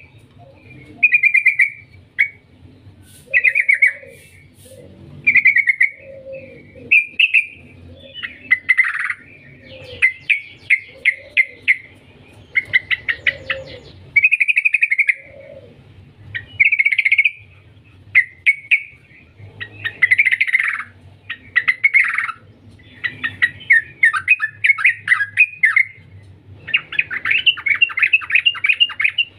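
Trucukan (yellow-vented bulbul) singing: a string of short, bubbling phrases of rapid notes with brief gaps between them, and a longer run of fast chattering notes near the end.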